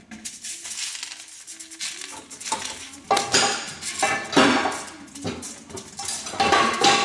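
Large aluminium pot rattling and clattering on a hot electric stove burner as it heats, in irregular bursts of metallic knocks that grow louder from about three seconds in.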